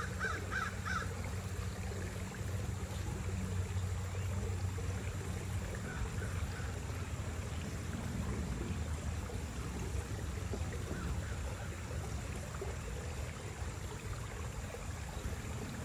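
Outdoor ambience: a steady low hum with a rushing background noise, broken right at the start by a bird calling about five times in quick succession, with a few fainter bird calls later.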